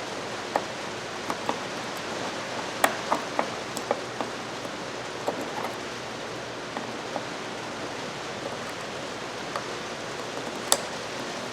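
Steady hiss of rain, with scattered light metal clicks of pliers working at the retaining clip of a Craftsman 3/8 drive ratchet; the sharpest clicks come about three seconds in and near the end.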